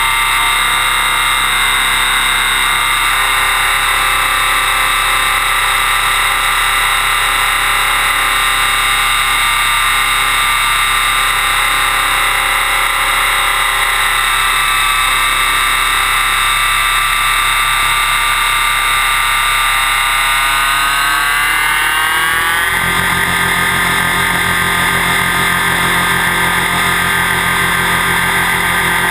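Align T-REX 600EFL Pro electric RC helicopter's motor and drivetrain whining with the rotor blades whirring, heard from a camera mounted on its frame. About three-quarters of the way through, the pitch rises over a couple of seconds and holds higher.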